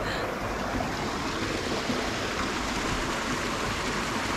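Small rocky woodland stream flowing over stones: a steady, even rush of water.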